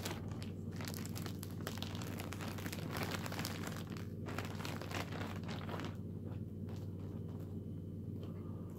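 Clear plastic bag crinkling and rustling as it is handled, thickest for about the first six seconds and then sparser. A steady low hum runs underneath.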